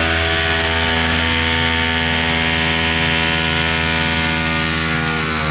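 Hilti cordless rotary hammer drilling into a plastered wall, running steadily at full speed as it bores one of a row of holes along the top of the wall.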